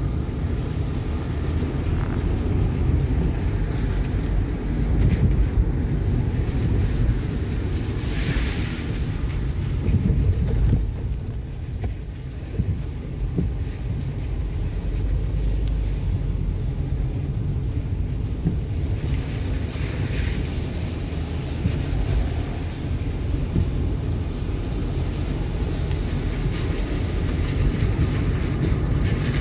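Car cabin noise while driving on a wet road: a steady low rumble of tyres, engine and wind. Brief hissing swells come about eight seconds in and again around twenty seconds.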